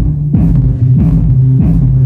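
A bass-heavy song played loudly through two subwoofers driven by an STK 4141 stereo amplifier, as a sound test. Deep sustained bass notes sound under a steady drum beat of about two hits a second.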